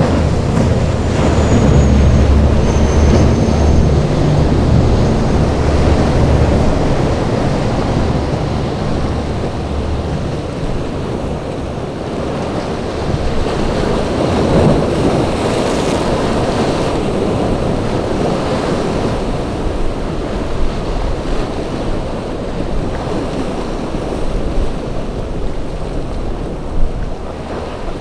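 Rough surf and choppy water with wind buffeting the microphone. A boat engine drones low through the first several seconds, then fades under the waves.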